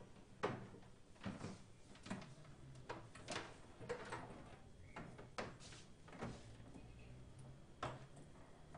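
Scattered clicks, knocks and rustles of cables and equipment being handled, with the sharpest knock about half a second in.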